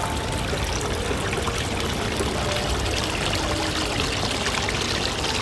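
Small decorative rock waterfall: water pouring and trickling steadily over stones into a shallow pool.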